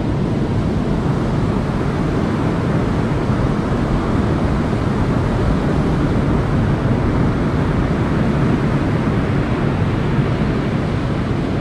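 Steady rumble of heavy surf breaking on the beach, mixed with wind on the microphone.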